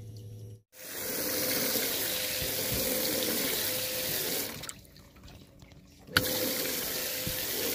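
A 1,000 gallon-per-hour electric bilge pump running, water rushing steadily as it empties the hull, with a steady hum under it. The rush drops away for about a second and a half partway through, then comes back.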